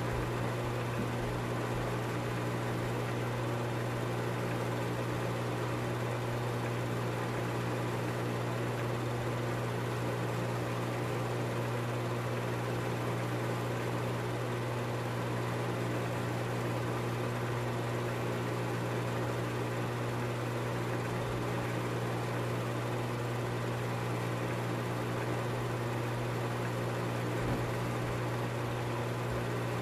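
Film projector running: a steady motor and fan hum with a constant low drone and an even hiss.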